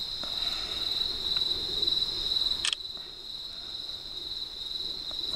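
Crickets chirping in a steady, continuous high-pitched trill, with one sharp click about halfway through.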